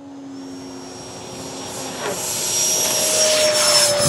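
Electric ducted fan of a Freewing T-33 RC jet running at high power with a steady high whine, growing louder through the takeoff run and climb-out, with a rushing whoosh swelling over the last couple of seconds as it passes close.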